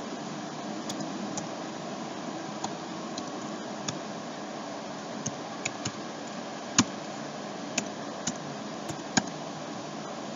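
Computer keyboard keystrokes: single sharp clicks at an uneven pace, about a dozen, over a steady background hiss.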